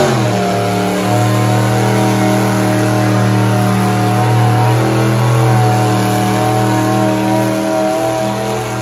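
Vintage farm tractor engine working hard under load as it drags a weight-transfer sled in a tractor pull, its pitch holding nearly steady, easing off slightly near the end.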